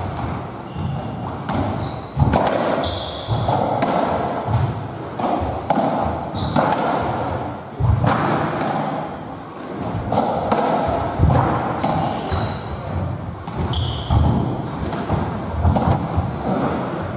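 A squash57 (racketball) rally: repeated sharp knocks of the ball struck by the rackets and hitting the walls. Shoes squeak in short high chirps on the wooden court floor.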